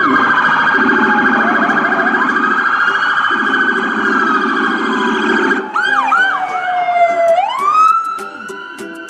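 Police car sirens, several at once: a fast warbling yelp in the first half, then one long wail that falls and swoops back up near the end. A low blaring horn tone sounds under the sirens through the first half and stops a little over halfway.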